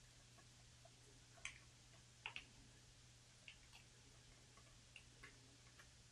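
Near silence over a low steady hum, with a few faint, scattered clicks and crackles of fingers picking wet soil from an alocasia's root ball.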